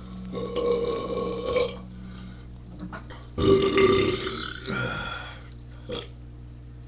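A man belching loudly twice, two long drawn-out burps about three seconds apart, the second trailing off into a shorter pitched croak.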